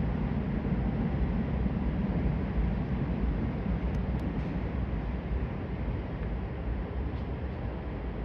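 Steady low rumble of a train running, slowly fading, with a couple of faint clicks about halfway through.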